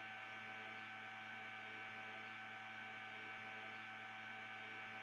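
Low, steady electrical hum with faint hiss, a constant background drone with several fixed tones and no other sound.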